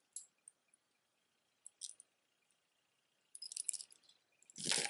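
Faint clicks and clinks of a plastic bead necklace and its metal toggle clasp being handled, with a cluster of small clicks about three and a half seconds in and a louder, brief rustle near the end.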